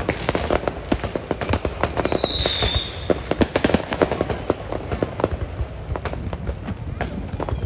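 Fireworks going off in quick succession: dense, irregular cracks and pops, with a short whistle that falls slightly in pitch about two seconds in.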